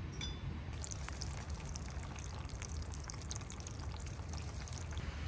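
Hot water pouring from a charcoal samovar's tap into a glass teapot. The pour starts about a second in, after a light clink.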